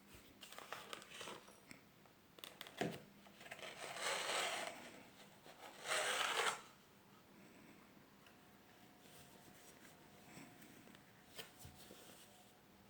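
Perfume packaging being handled and unwrapped: scattered light clicks and taps, with two louder rustles of paper or wrapping about four and six seconds in.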